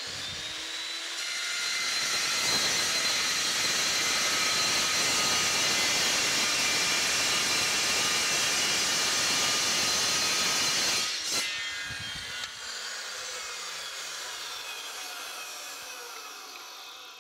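Metal Devil 14-inch dry-cut metal saw spinning up with a rising whine, then its toothed blade sawing steadily through a cast iron gear segment. Near eleven seconds the cut finishes with a sharp click, and the blade coasts down with a slowly falling whine.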